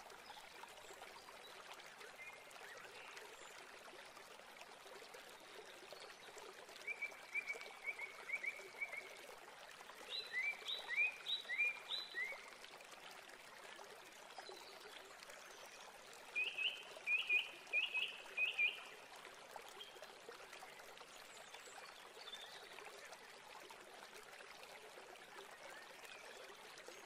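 Faint steady hiss broken by three short runs of quick, high chirps, a handful of notes each, about seven, ten and seventeen seconds in.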